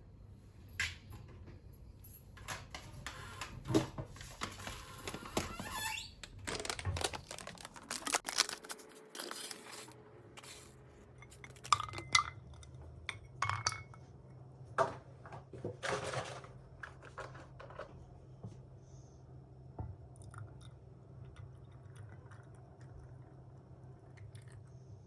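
Objects being handled: scattered clicks, light knocks and rustling, busiest in the first two-thirds, over a low steady hum.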